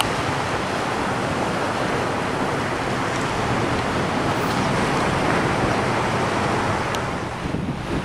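Steady rush of small waves washing onto a sandy shore, mixed with wind on the microphone; the noise dips briefly near the end.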